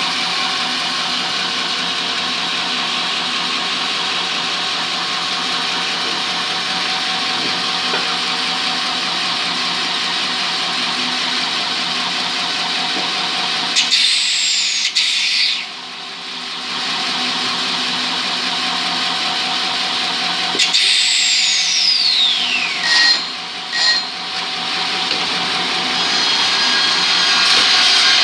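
Woodworking machinery running with a steady whirring hum. About halfway through, and again about two-thirds in, a high whine falls sharply in pitch, with brief drops in level as the machine lets up.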